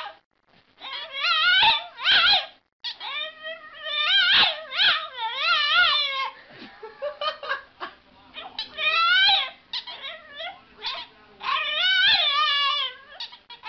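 French bulldog puppy 'talking': a run of drawn-out, wavering yowls whose pitch rises and falls within each call, in several bouts with short breaths between.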